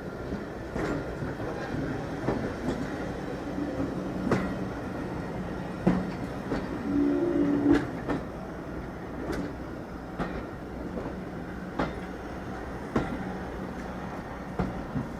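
Railway train rolling slowly, with a steady low rumble and the wheels clicking over rail joints about once a second.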